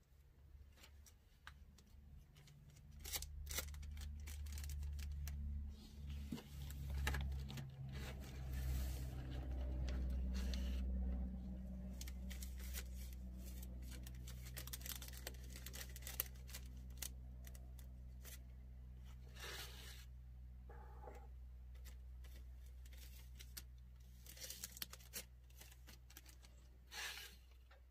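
Incense sticks rustling and clicking as they are counted out of a bundle by hand, with the crinkle of a plastic bag. Underneath, a low hum swells a few seconds in, is loudest around the middle, and slowly fades.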